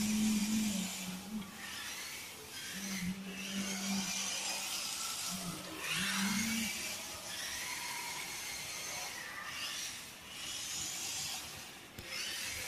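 Small electric drive motors of an RC rock crawler whining as it drives and turns, in stop-and-go spurts of throttle.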